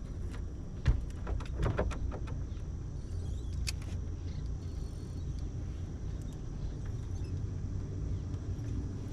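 Steady low rumble, with a sharp knock about a second in, a few quick clicks just after it, and a single click near four seconds.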